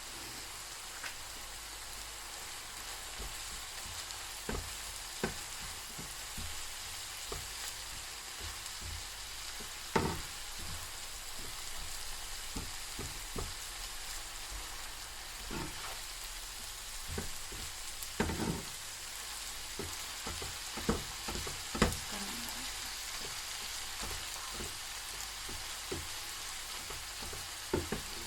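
Beef sizzling as it fries in a pan, with irregular knocks and scrapes from a utensil stirring it; a few sharper knocks stand out.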